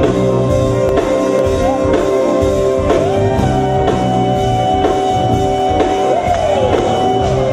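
Loud music with a steady beat and held, sliding melody notes.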